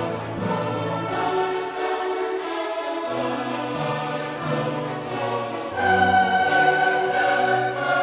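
Classical choral music: a choir singing slow, held chords, swelling louder about six seconds in.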